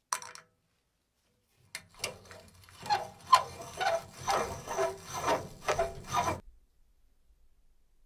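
A single sharp click, then a run of scraping strokes, about two a second, each with a short ringing note, stopping abruptly about six seconds in.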